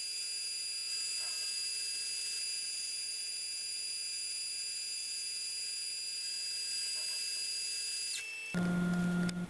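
Metal lathe running with a steady high-pitched whine while a carbide tool turns a taper on a metal bar. About eight seconds in, the whine glides down and drops away, followed by a short, louder hum lasting under a second.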